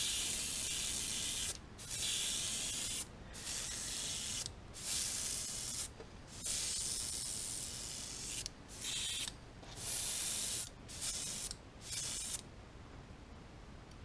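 Gravity-feed airbrush spraying paint in repeated bursts of hiss as the trigger is pressed and released, about nine in all. The early bursts are longer, the later ones shorter and quicker, with a pause near the end.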